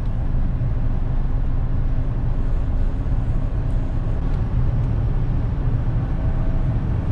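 Steady low rumble of road and tyre noise inside the cabin of a moving 2009 Honda Accord V6, its doors and trunk lined with sound deadening.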